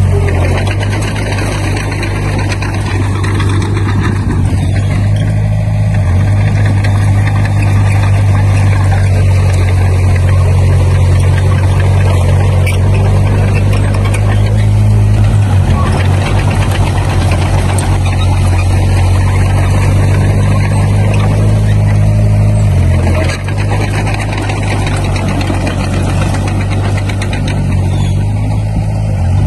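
Komatsu D20P bulldozer's diesel engine running steadily under load, with a low, even drone that dips briefly about three-quarters of the way through.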